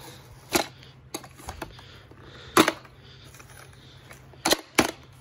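Sharp, irregular clicks and knocks of plastic and metal as the plastic blower-fan base of an inflatable is handled, its metal snap clips rattling against the housing. There are about half a dozen clicks, the loudest a few seconds apart and two close together near the end.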